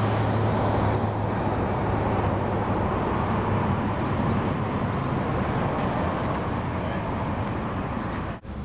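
Steady engine and road noise of a vehicle driving, with a low drone underneath. It cuts off abruptly near the end.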